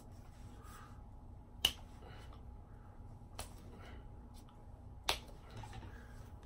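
Three sharp finger snaps, about a second and a half to two seconds apart, the first and last loudest.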